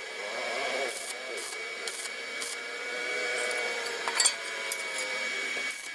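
Stick (arc) welding on steel rod: the electrode's arc crackling and hissing steadily, with scattered sharp pops and a louder crack about four seconds in.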